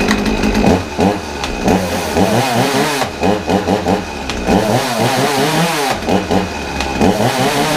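Ryobi RCS3535A two-stroke petrol chainsaw, restarted warm without choke and running, its engine revved up and down over and over with quick throttle blips. It runs cleanly, fit for use but due a service.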